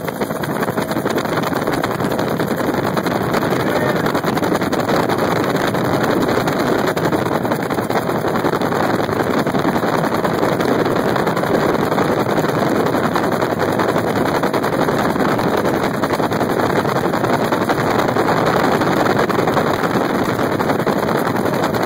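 Steady noise of a helicopter in flight heard from inside the cabin: engine and rotor noise mixed with wind rushing past the open door and over the microphone.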